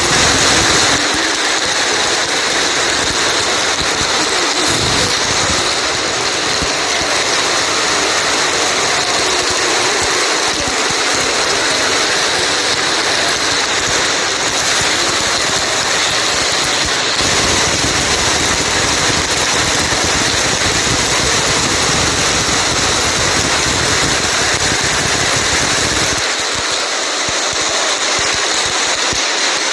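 Heavy rain falling, a loud steady hiss that shifts a little in tone a few times.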